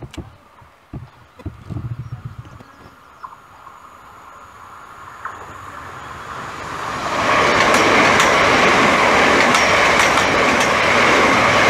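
Southern Class 377 Electrostar electric multiple unit approaching and passing at speed. Its rumble builds from about four seconds in, then turns into a loud, steady rush of wheels on rail with sharp clicks over the rail joints.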